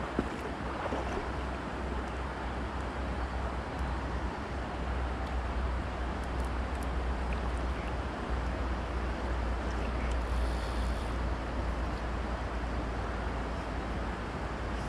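River water running fast and shallow over a stony bed, a steady rushing with a deep, steady rumble underneath.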